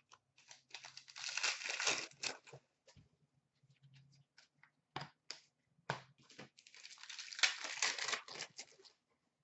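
Card pack wrapper being torn open and crinkled, in two rustling stretches with a few sharp clicks between them.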